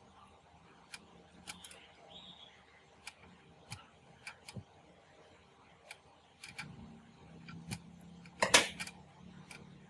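Scattered sharp clicks and knocks from the radio cassette player being handled during restoration, with a louder clatter about eight and a half seconds in. A faint low hum comes in about halfway through.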